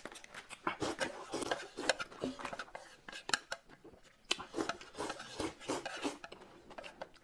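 Close-up eating sounds: a whole braised chicken being torn apart by hand, with chewing, and chopsticks scraping against a plate, heard as many short clicks and rubbing noises.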